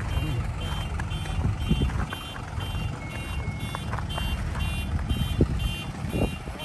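A vehicle's reversing alarm beeping about twice a second, with a low engine hum beneath it and footsteps crunching in snow.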